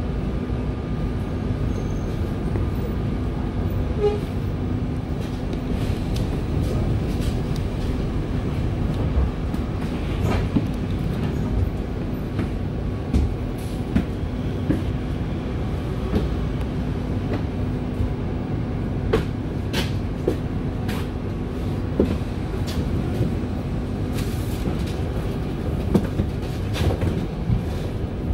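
Inside a Volvo B5LH hybrid double-decker bus standing still: a steady low rumble and hum, with irregular clicks and rattles from the bus's fittings.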